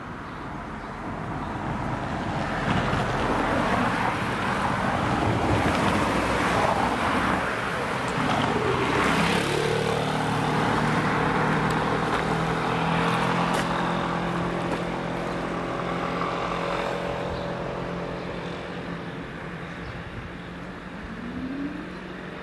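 Street traffic: vehicles pass close by with tyre and engine noise that swells over the first half and then eases. From about halfway in, an engine's steady low hum holds under it.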